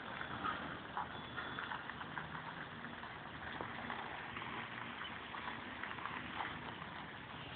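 Renault Premium truck's diesel engine running steadily at low revs as it manoeuvres a semi-trailer, with scattered faint clicks.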